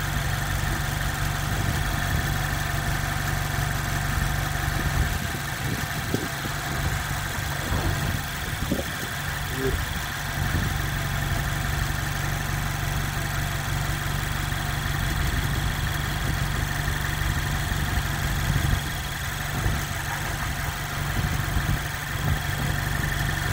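2021 Mazda Miata's four-cylinder engine idling steadily with the hood up: an even low hum that does not change.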